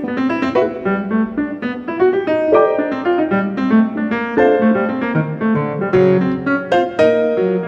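Instrumental piano music: a quick, flowing run of notes over lower chords.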